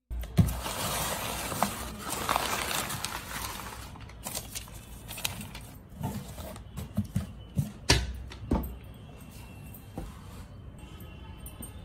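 Crumpled kraft packing paper rustling and crinkling as it is pulled from a cardboard shipping box, followed by scattered knocks and scrapes of cardboard boxes being handled and lifted out.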